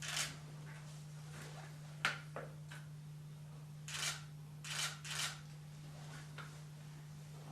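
Hairdressing scissors snipping through long hair: about seven short, crisp cuts at uneven intervals, with a sharper click about two seconds in.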